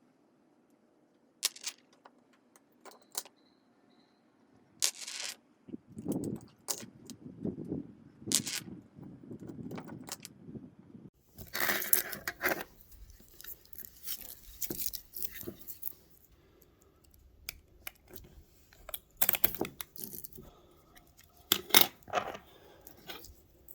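Handling noises from putting butyl tape on boat handrail mounting holes: scattered sharp clicks and taps, with longer stretches of rustling and tearing in the middle.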